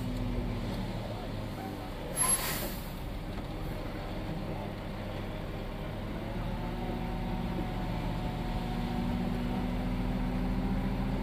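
Concrete mixer truck's CAT C13 diesel engine running at low speed, heard from inside the cab as the truck creeps forward, with a short air-brake hiss about two seconds in. The engine note rises slowly toward the end as the truck pulls ahead.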